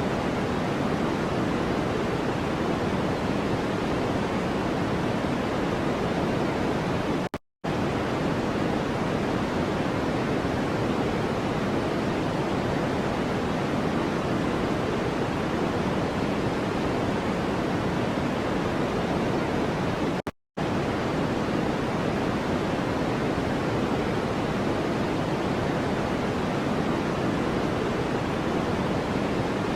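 Steady, even rushing noise of a white-noise track, weighted toward the low and middle range like pink noise. It cuts out completely for a split second twice, about a third and two thirds of the way through.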